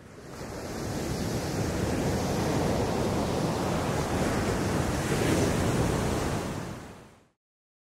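Rushing ocean surf, steady with no tune or beat. It fades in over about the first second and fades out to dead silence about seven seconds in.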